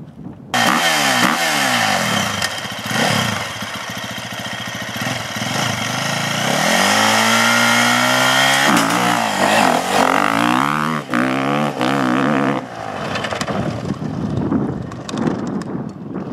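Dirt bike engine revving hard and accelerating, its pitch climbing and dropping again and again, with a steadier held stretch about halfway through. It starts abruptly about half a second in.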